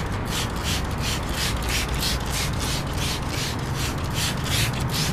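Trigger spray bottle of all-purpose tire cleaner being pumped rapidly: a quick, even run of short hissing squirts, several a second, as the tire is sprayed generously.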